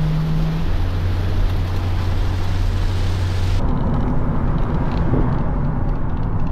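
Cabin noise of a moving Hyundai van on a wet road: a steady hiss with a low engine drone. About three and a half seconds in, the sound changes abruptly: the hiss drops away and a duller rumble of tyres and wind remains.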